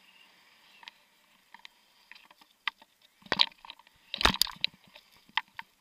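Close crunching and knocking handling noise: scattered sharp clicks, then two loud bursts of crunching and knocking about three and four seconds in.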